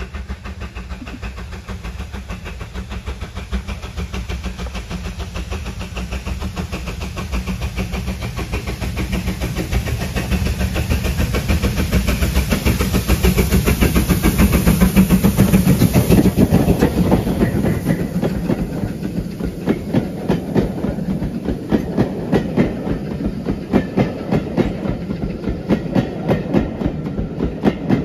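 Steam locomotive hauling a train approaches and passes close by, its running sound growing louder to a peak about halfway through. Then the coaches roll past with a rhythmic clickety-clack of wheels over the rail joints.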